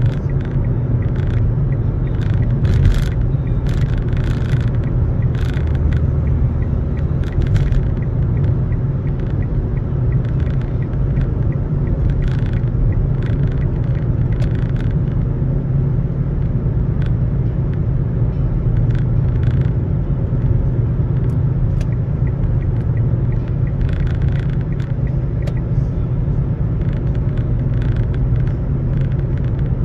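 Road and engine noise inside a moving car: a steady low rumble, with short hissy swishes coming and going.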